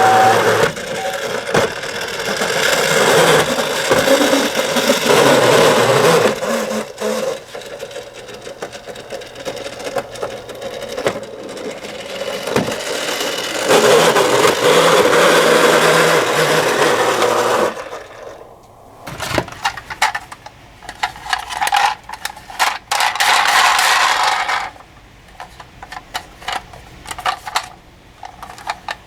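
Die-cast toy minicars rattling and clattering along a plastic toy track, a busy mechanical rattle that swells and fades. It breaks into scattered clicks in the last third.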